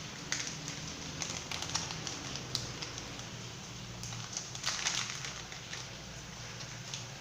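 Irregular light clicks and taps of kitchen utensils against a dish or board, over a low steady hum.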